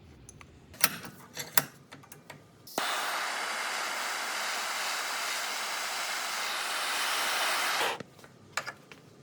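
A few light clicks of parts being handled, then a steady hiss of pressurised air for about five seconds, starting and stopping abruptly.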